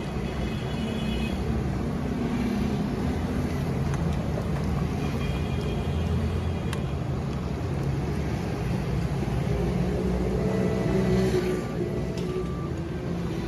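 Busy street noise: a steady low rumble of passing traffic, with a few brief higher tones over it and a single click about halfway through.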